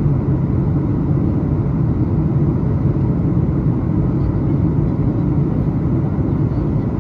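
Steady low rumble of engines and rushing air inside the passenger cabin of a Boeing 737 MAX 8 in flight, on its descent toward landing.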